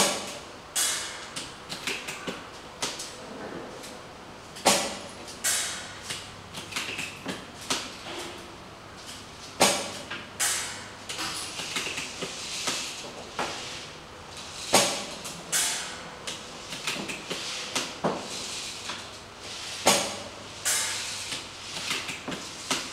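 ARES Amoeba Striker AST-01 bolt-action airsoft sniper rifle firing five sharp shots, about five seconds apart. Between the shots there are smaller clicks and short sliding noises as the bolt is worked.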